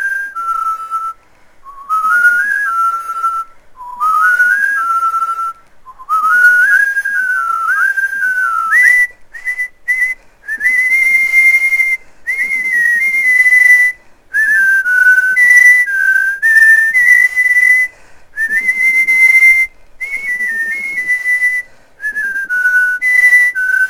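A person whistling a melody in short phrases with brief pauses between them, some notes sliding up into place.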